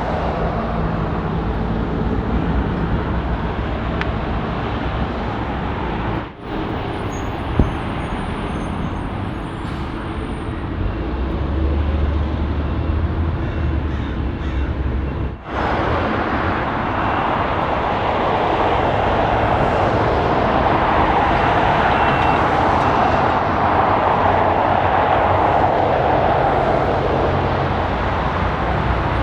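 Boeing 747-8 freighter's four GEnx jet engines running at taxi power: a steady rushing jet noise, with two brief dips about 6 and 15 seconds in, growing louder in the second half.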